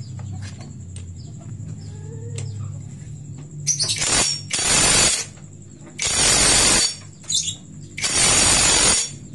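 Cordless impact wrench hammering on the clutch centre nut of a Honda CB150R engine to break it loose. It runs in four bursts of just under a second each, starting about four seconds in, with a short blip between the third and fourth.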